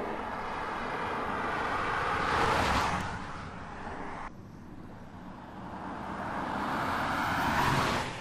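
BMW 730d (E65) with its 3.0-litre straight-six turbodiesel driving past twice: tyre and engine noise swell as the car approaches and passes, peaking about two and a half seconds in. The sound cuts off abruptly about four seconds in, then builds to a second pass-by near the end.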